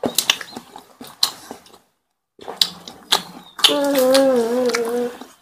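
Eating by hand from steel plates: fingers mixing rice and fish curry and mouths chewing make scattered clicks and smacks. Near the end comes one drawn-out, wavering vocal sound about a second and a half long.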